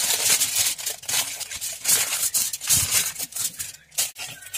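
Irregular crinkling and rustling with bits of scraping, the sound of sheet material being handled.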